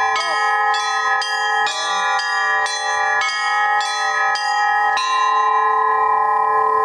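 Russian-style church bell peal (zvon): small bells struck in a quick, even rhythm about twice a second over the steady hum of larger bells. The strikes stop about five seconds in and the bells ring on.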